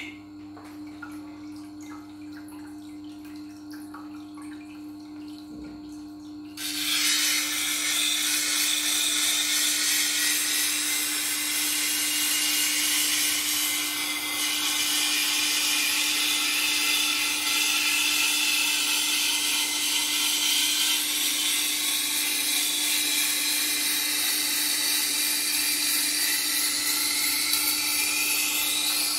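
Tormek sharpening machine's motor running with a steady hum. About six and a half seconds in, a knife blade is pressed against the coarse grinding wheel and a loud, steady grinding hiss starts and keeps on: the bevel being ground and the edge apex being set.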